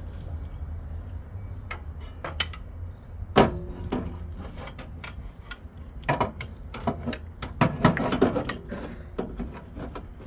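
Irregular knocks and clatter of objects being handled, loudest about three and a half seconds in and in a cluster from about six to eight seconds in, over a steady low hum.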